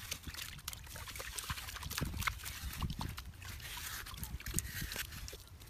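A shovel digging into stony, gravelly earth: irregular scraping and crunching, with sharp clinks as the blade hits stones.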